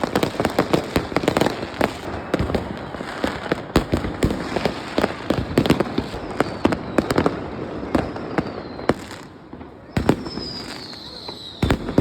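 Many fireworks going off at once in rapid crackling bangs, thinning out about eight seconds in. Near the end come a falling whistle and a few sharp bangs.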